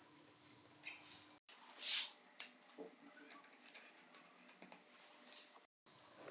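Small hard parts being handled on a bench: scattered light clicks and rattles, with a brief hissing swish about two seconds in that is the loudest sound. The sound drops out completely twice, briefly.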